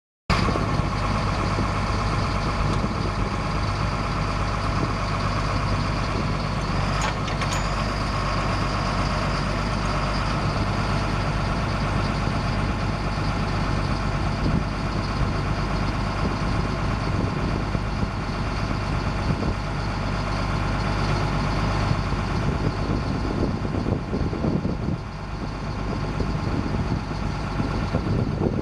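Caterpillar 3126 six-cylinder turbo diesel of a 1998 GMC C7500 truck idling steadily.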